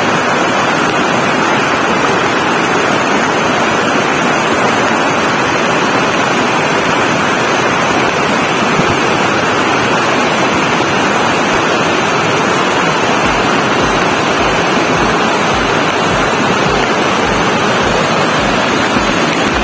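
Monsoon-swollen stream cascading over rocks: a steady, loud rush of white water. In the last third a low thud repeats about twice a second.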